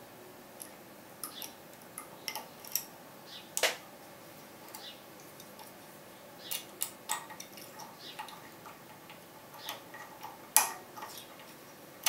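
Lock pick working the pins inside a Dom IX 6KG cylinder: irregular small metallic clicks and scrapes, with a sharper click about three and a half seconds in and another near the end.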